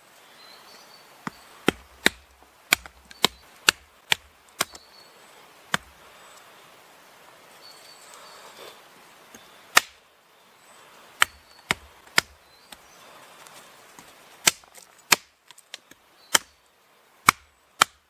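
Small hatchet chopping a decayed, punky ash stick into small pieces on a wooden chopping stump: a run of sharp, irregular chops, a pause of a few seconds near the middle, then more chops.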